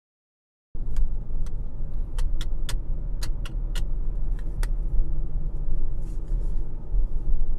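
Car interior rumble from the engine and road, starting abruptly less than a second in. Over it, in the first few seconds, comes a string of sharp, irregular clicks.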